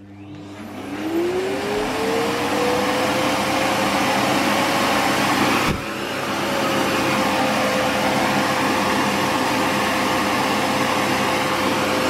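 Rowenta Silence Force canister vacuum cleaner, nozzle removed and set to its middle power setting, switching on. Its motor whine rises in pitch as it spins up over about two seconds, then it runs steadily with a rushing airflow. There is a single brief click about halfway through.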